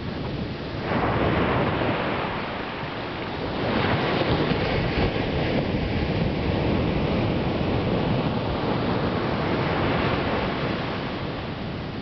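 Ocean surf breaking and washing up a sandy beach, a steady wash that swells about a second in and again near four seconds.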